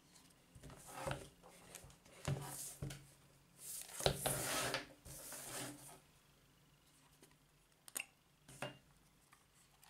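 Handling noise from a Zorki-4 camera and its leather case: irregular rubbing and scraping of leather and metal under the hands, loudest about four to five seconds in, then two short sharp clicks about eight seconds in.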